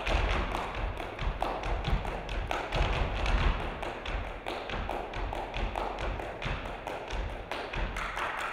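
Two people clapping their hands in a fast, steady rhythm, with low thumps underneath.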